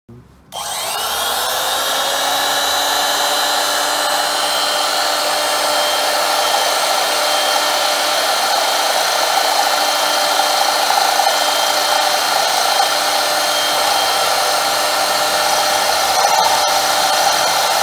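Enomoto Amini No.1100 benchtop lathe switched on about half a second in, its motor spinning up with a rising whine and then running steadily. Near the end scattered clicks come in as the cutting tool starts into the spinning wooden dowel.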